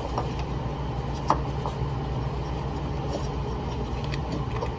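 A few light clicks and taps of a fuel filter being handled and fitted into its plastic bracket, the clearest about a second in, over a steady low background hum.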